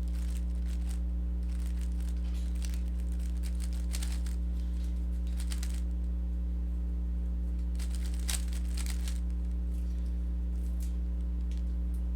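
Plastic Rubik's cube being turned in quick spurts of algorithm moves, a rapid clacking and rattling of the layers that comes in several bursts with short pauses between. A steady low electrical hum runs underneath.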